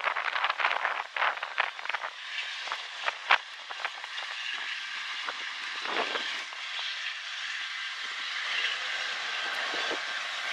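Freight train rolling along the rails at a distance: a steady rushing noise of wheels on track with a faint high whine. A run of sharp clicks and knocks comes in the first two seconds.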